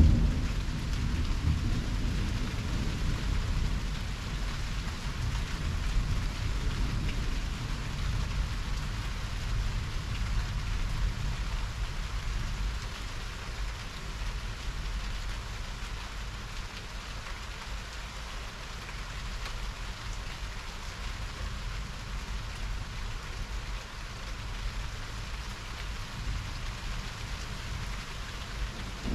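Heavy rain falling steadily in a thunderstorm, with a low rumble of thunder easing off over the first few seconds.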